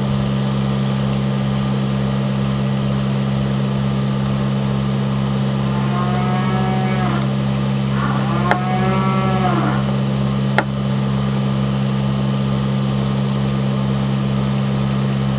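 A steady mechanical drone with a slow, low throb, like a motor running. Two drawn-out calls rise and fall near the middle. A couple of sharp clicks sound just before the ninth and eleventh seconds.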